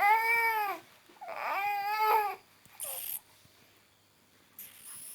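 A young child with a cough crying out twice in high-pitched, drawn-out whines, each rising and then falling in pitch, followed by two short breathy bursts.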